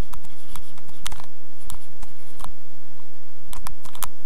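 About ten short, irregularly spaced clicks of a pen stylus tapping on a tablet as a word is handwritten.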